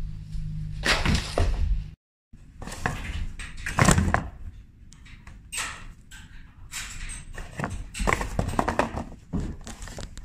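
Cardboard box and paper leaflet being handled and pulled about by a De Brazza's monkey: irregular rustling and crinkling with scattered thumps, the loudest about four seconds in.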